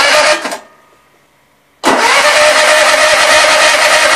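Cub Cadet riding mower's electric starter cranking the engine, which does not catch: a brief crank, then after a gap of over a second a longer steady crank. The engine has sat unstarted all winter.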